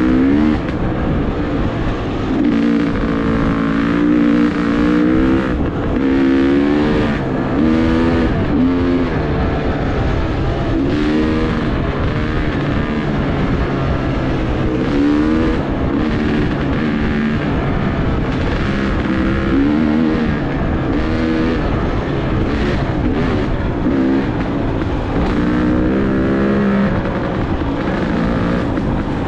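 Dirt bike engine running under load on a trail, its pitch rising and falling again and again as the throttle is opened and eased off.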